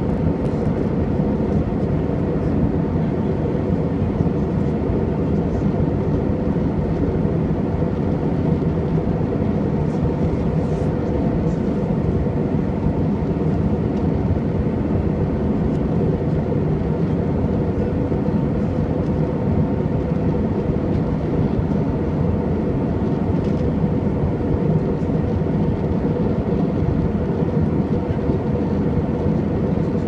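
Steady cabin noise of an airliner in flight, heard from inside the cabin: a dense rumble of jet engines and rushing air with a faint steady hum.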